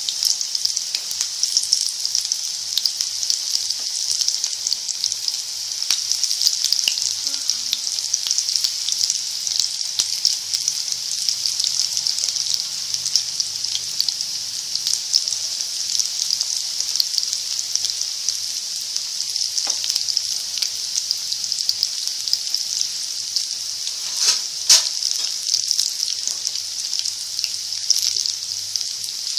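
Onion pakoras (gram-flour batter fritters) deep-frying in hot oil in a wok on a lowered flame: a steady sizzle with fine crackling, and a few louder pops about twenty and twenty-five seconds in.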